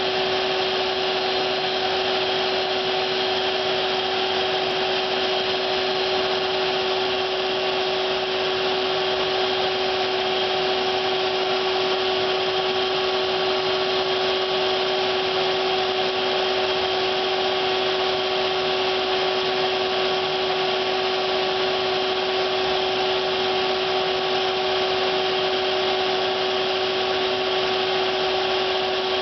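Machinery running steadily: a constant hum with a hiss over it that does not change.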